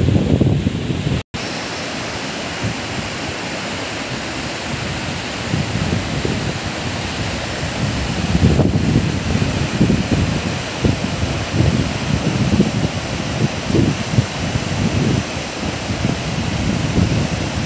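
Whitewater rapids of the Sindh river rushing in a steady roar, with gusts of wind buffeting the microphone. The sound drops out for an instant about a second in.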